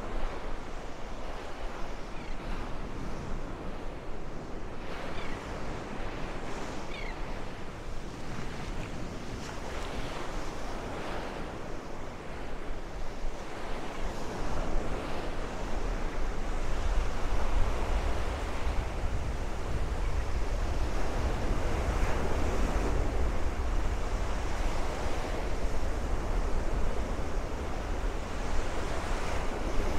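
Gulf surf washing onto a sandy beach, with gusty wind rumbling on the microphone that gets stronger about halfway through.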